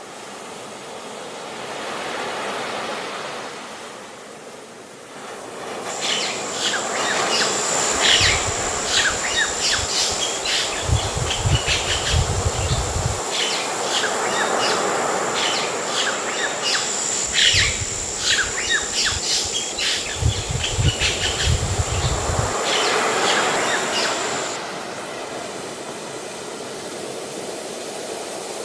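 Waves washing softly, then from about six seconds in a dense chorus of short bird chirps with a steady high-pitched tone running under them, broken by two stretches of low rumble. The chirping stops a few seconds before the end, leaving the wash of the sea.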